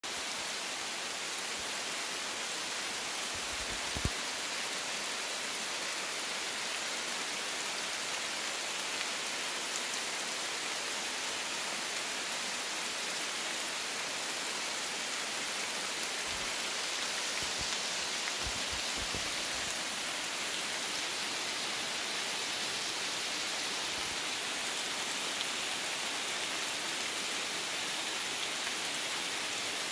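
Steady rainfall on woodland leaves and rocks, an even hiss with no let-up. A few soft low thumps come through, the sharpest about four seconds in.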